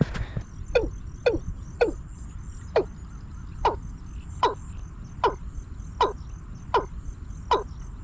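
A bird call played from a speaker as a trapping lure: a sharp call that sweeps quickly downward in pitch, repeated about once every 0.8 seconds, starting under a second in after a knock.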